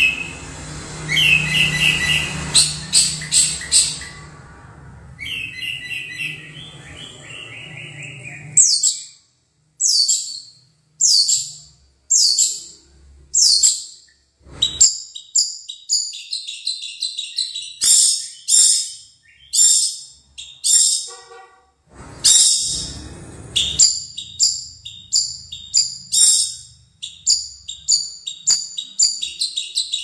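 Long-tailed shrike (cendet) singing: a fast, varied run of sharp repeated notes and chattering phrases, broken by short pauses. A low steady hum sits under the first several seconds.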